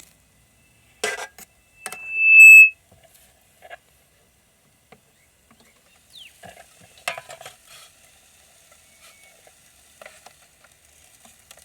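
Light clicks and clatter of a utensil in a 12-volt RoadPro roaster, with chicken kebabs sizzling faintly. A sharp, loud, high-pitched tone sounds for under a second about two seconds in.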